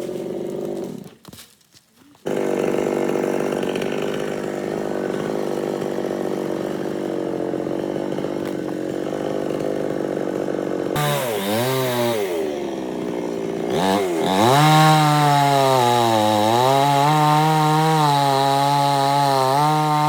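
Chainsaw running, dropping out briefly about a second in and then running steadily. From about halfway it revs hard, its pitch rising and sagging repeatedly as it works through wood, and it cuts off at the end.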